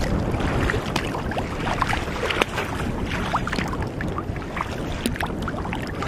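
Wind rumbling on the microphone, with choppy lake water slapping and splashing against a kayak's bow in many small, irregular splashes.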